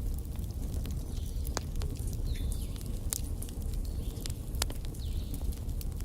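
Wood fire burning in a fireplace: a steady low rumble of the flames with irregular sharp crackles and pops from the logs, a few louder ones standing out, and a few faint short high whistles.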